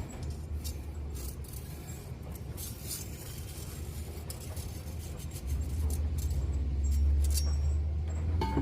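Small hand-held sharpening stone scraping and clinking along a steel machete blade in short strokes. A steady low rumble grows much louder about halfway through.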